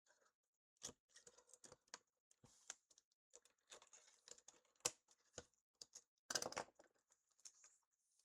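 Faint handling noises: scattered small clicks, taps and rustles, with a sharp click near five seconds in and a louder rustle a little after six seconds.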